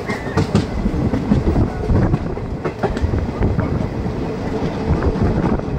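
Passenger train running on the rails: a heavy rumble with many irregular wheel knocks and clatter.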